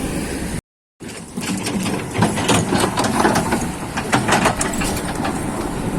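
Kobelco SK200 excavator's diesel engine running, with a rapid, irregular clatter of knocks and clicks over it. The sound drops out completely for a moment just under a second in.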